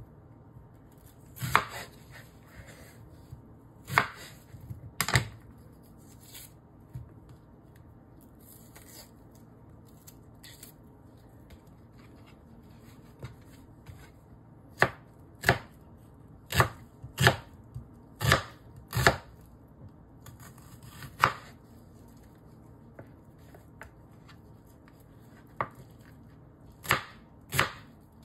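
Chef's knife chopping an onion on a bamboo cutting board: single sharp knocks of the blade on the wood. A few scattered chops, a pause of several seconds, then a run of about ten, and a few more near the end.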